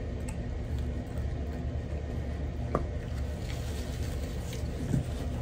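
Steady low hum with light handling noises of a sauce bottle being poured and wiped with a napkin: a few faint clicks, one sharper click partway through and a soft knock near the end.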